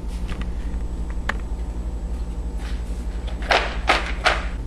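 Sugar-coated kettle corn being moved around in its pot: a few light clicks, then a cluster of louder rattles about three and a half seconds in, over a steady low hum.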